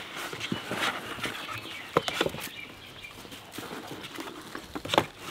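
Rustling and scrabbling of puppies' paws on dry leaves and a cardboard box as a litter of puppies comes out of the box, with scattered light clicks and a sharper knock about two seconds in and again near the end.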